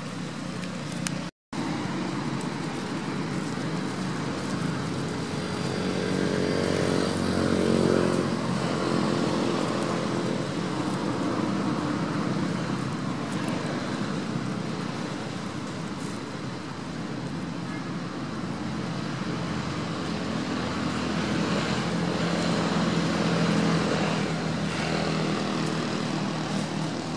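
Traffic noise: motor vehicle engines running steadily, swelling louder about six to eight seconds in and again near the end.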